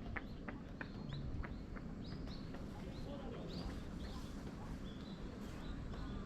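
Short high chirping calls, each rising quickly in pitch, repeating about twice a second over a steady low outdoor rumble. A quick run of ticks is heard in the first second or so.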